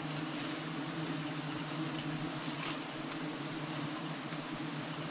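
Swarm of giant honeybees (Apis dorsata) buzzing as a steady, even drone, a colony stirred up by the honey harvest.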